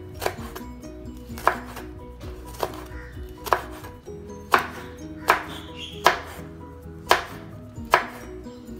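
Kitchen knife slicing a red chilli into rings on a bamboo cutting board: a sharp tap of the blade on the board with each cut, about one a second, nine cuts in all.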